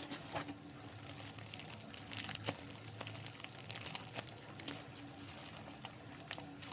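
Wrapper of a packaged bread roll crinkling and crackling as it is handled, with many irregular small crackles.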